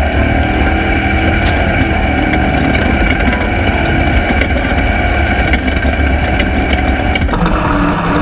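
Off-road race vehicle's engine running hard at steady high revs, a loud constant drone with a high whine, its tone changing slightly about seven seconds in.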